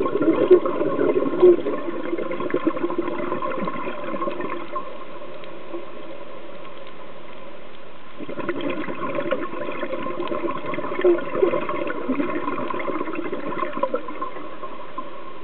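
Scuba diver's exhaled bubbles gurgling out of the regulator underwater, in two long exhalations with a quieter stretch between them.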